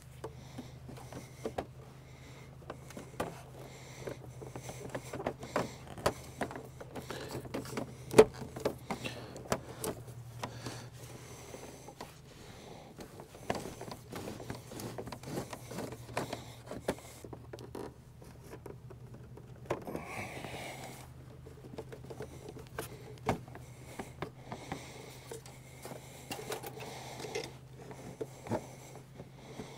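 Irregular clicks, taps and scrapes of hands and tools working on a truck's fuel lines, with a longer scrape about two-thirds of the way through, over a steady low hum.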